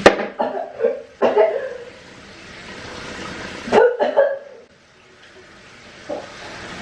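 A woman coughing in short harsh bursts: several in the first second and a half, then two more about four seconds in.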